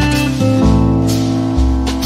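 Background music led by strummed acoustic guitar over a bass line that changes note every half second or so.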